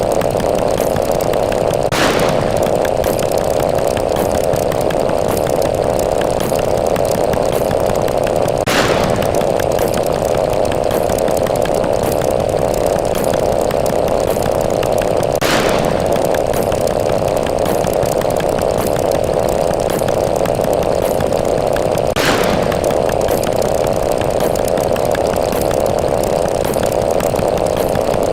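Continuous buzzing sound effect of a fast-running number counter, with a short, sharper accent four times, about every seven seconds.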